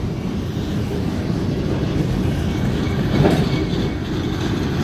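Freight train cars rolling past, with steady wheel rumble and clatter over the rails and one louder knock a little past three seconds in.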